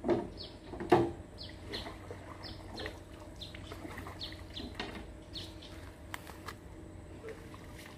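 Small birds chirping, short falling calls repeated every second or so, over splashing as a net with fish is hauled into a wooden boat: two loud splashes at the start and about a second in, then lighter splashes and knocks.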